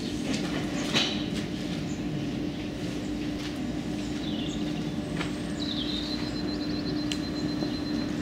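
Standing steam locomotives in a depot yard: a steady mechanical hum over a low hiss, with a single sharp clank about a second in and a thin, high whistling note held for a second or two past the middle.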